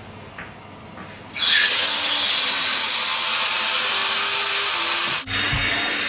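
Bath tap turned on: water gushing from the tap into a bathtub, starting suddenly about a second in as a loud, steady rush. It breaks off for an instant near the end and then carries on.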